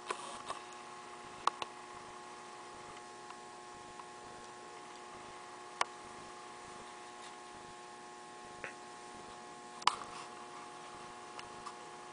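Juvenile American alligator biting down on a mouse: several sharp clicks and snaps of its jaws, scattered and irregular, the loudest about ten seconds in. A steady electrical hum runs underneath.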